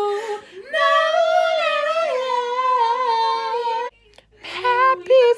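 A woman singing: one long, high held note with a slight waver, then after a brief break a shorter sung phrase near the end.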